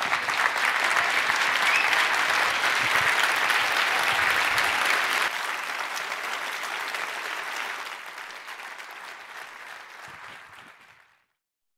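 Audience applauding, strongest for the first few seconds, then gradually dying away before stopping abruptly near the end.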